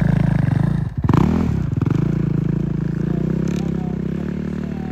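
Dirt bike engine revving as the bike rides a track on lake ice. The engine note drops briefly about a second in, climbs again, then holds steadier and slowly fades as the bike moves away.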